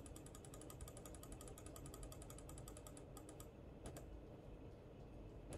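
Faint, fast even run of small clicks from someone working a computer, about ten a second for some three seconds, then a few single clicks near four seconds in and near the end.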